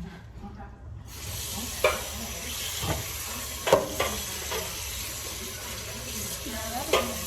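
Food sizzling in a hot frying pan, starting suddenly about a second in, while a utensil stirs it and knocks against the pan four times.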